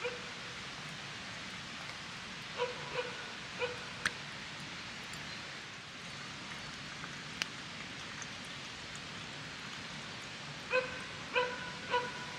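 An animal calling in two bursts of three short calls, about half a second apart, over a steady background hiss. A few sharp clicks sound in between.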